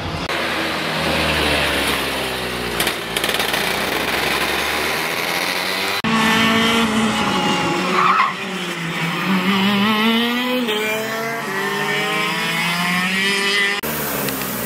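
Racing kart engines running at high revs, their two-stroke note rising and falling as the karts accelerate and lift off. The sound jumps abruptly about six seconds in and again near the end.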